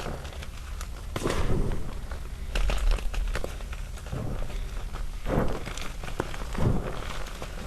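Small chunks of gym chalk being crushed by hand in loose chalk powder. Soft crunching presses come about every second, with many small, irregular snaps and crackles between them.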